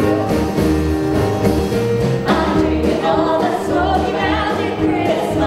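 Live band with keyboard and guitars playing a song, with group singing joining about two seconds in over a steady bass pulse.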